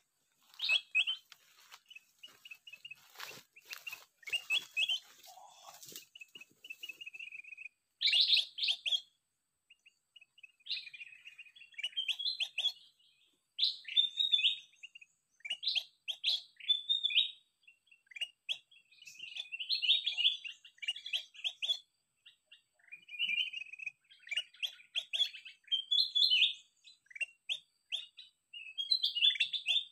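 Recorded kutilang emas (bulbul) song played from an MP3 player as a bird-trapping lure: short chirping phrases, repeated over and over with brief pauses between them. A few clicks and rustles come in the first few seconds.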